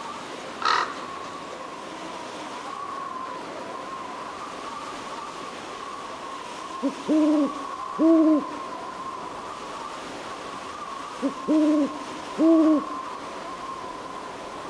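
An owl hooting in two series, each a short note followed by two longer hoots, over a steady high-pitched hum. A brief sharp sound comes less than a second in.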